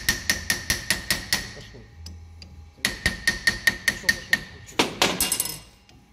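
A hammer striking steel in quick ringing taps, about five a second, in two runs, with a louder blow and a short metallic rattle near the end. The taps fall on a two-jaw bearing puller gripping the tapered roller bearing on a Nissan Patrol differential pinion, to jar the tight bearing loose while the puller is under tension.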